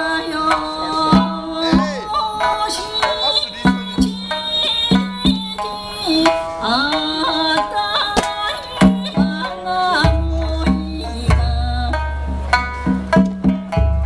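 Live Okinawan folk-style song over a stage PA: women's voices singing over a strong, regular percussion beat. A steady low rumble comes in about ten seconds in.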